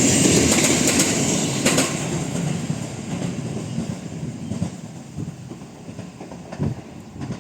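JR East E131 series 0 subseries electric train with its wheels clattering over rail joints, fading steadily as it moves away.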